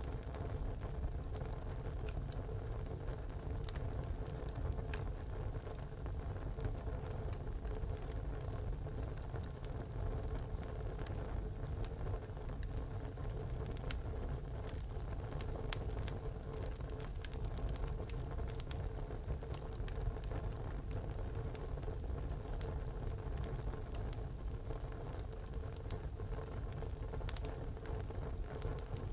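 Wood fire burning in a tile stove: a steady low rush of flame with frequent sharp crackles and pops from the burning wood, coming at irregular intervals.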